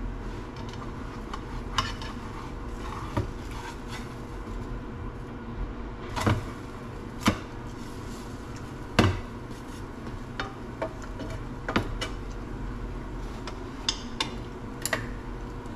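Spatula clinking and scraping against frying pans during stovetop cooking: about eight sharp, irregularly spaced clinks, the loudest about six, seven and nine seconds in, over a steady low hum.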